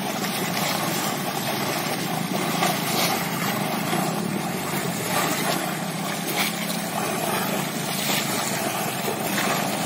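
Water splashing and sloshing as several people wade through shallow floodwater and plunge bamboo fish traps (polo) into it, under a steady low rumble.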